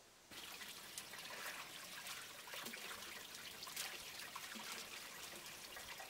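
A stream of water pouring from a pipe and splashing into a water-filled stone basin, a steady splashing trickle with many small drips and plops. It starts suddenly about a third of a second in.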